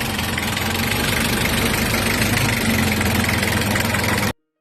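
Car engine idling steadily in the engine bay. The sound cuts off abruptly near the end.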